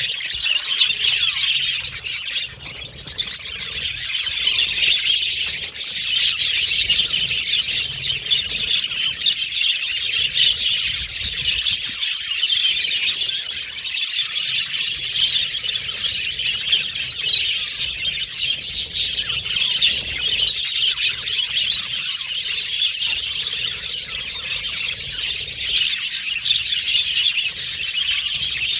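A group of budgerigars (budgies) chattering and warbling without a break: a dense, high-pitched mix of chirps, whistles and squawks.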